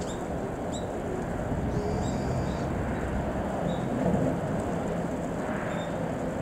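Steady low rumble of distant vehicles on a road-rail viaduct, with a few short, high bird chirps over it.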